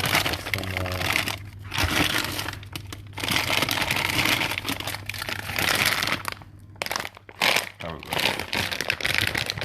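Plastic food packaging crinkling and rustling in repeated bursts as packs of food are handled and moved about in the freezer.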